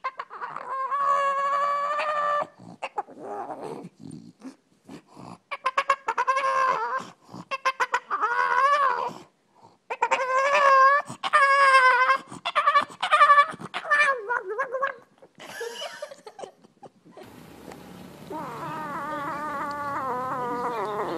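A dog vocalizing in a run of drawn-out whines and howl-like calls, some held steady and some wavering up and down, with short gaps between them. About three-quarters of the way through they stop, and a quieter wavering call takes over.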